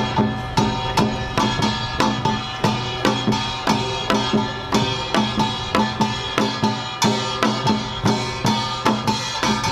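Samul nori ensemble playing an utdari rhythm: kkwaenggwari small gong clanging over janggu hourglass drum and buk barrel drums in a fast, steady beat, with brass gong ringing sustained underneath.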